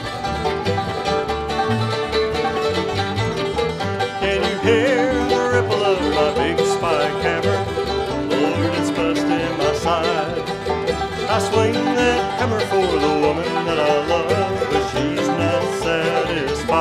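Bluegrass band of fiddle, banjo, acoustic guitar, mandolin and upright bass playing an instrumental break with a steady bass beat and no singing. A lead line with wavering pitch comes in over the rhythm about four and a half seconds in.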